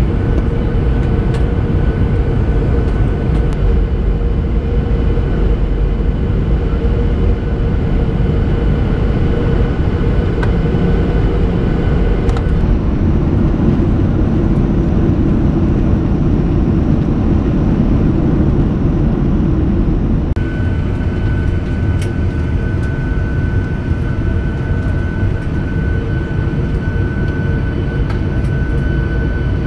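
Cabin noise of a Boeing 737-800 with CFM56 engines, heard over the wing: a steady rumble of engines and airflow with a steady whine. About twelve seconds in it changes abruptly to a denser, rougher rush as the jet is on the runway after landing. About twenty seconds in it drops to a lower rumble with a clear high whine while taxiing.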